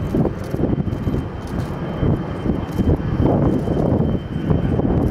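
Tupolev Tu-154 three-engine jet airliner climbing out after takeoff: a loud, low jet engine rumble that swells and dips without a break.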